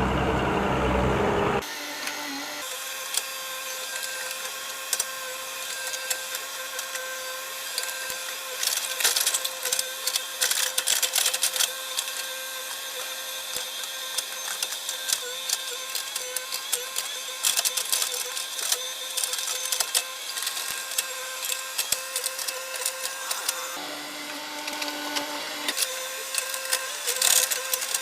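Hitachi hydraulic excavator at work: a low engine hum that breaks off abruptly near the start, giving way to a steady mechanical whine with irregular clicking and rattling.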